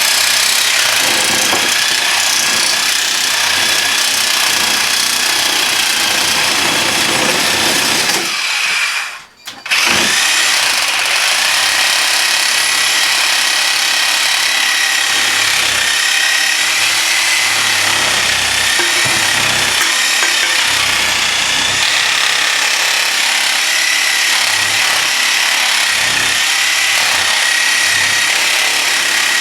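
Reciprocating saw (Sawzall) with a fresh blade cutting through the steel end of an air-conditioner condenser coil clamped in a vise, running steadily with a high whine. It stops for about a second roughly a third of the way in, then starts again and keeps cutting.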